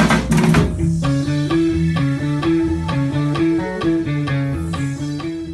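Electric bass guitar playing a repeating groove on its own, after the drums and percussion stop under a second in.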